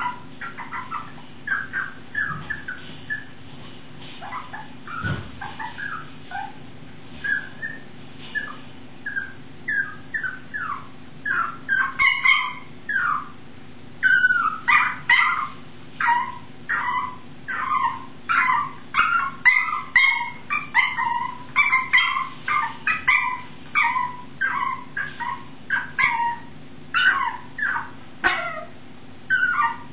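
Puppy whining and yelping in short, high cries. The cries are sparse at first, then from about halfway through come louder and more often, roughly one or two a second, as the confined puppy tries to get out of its pen.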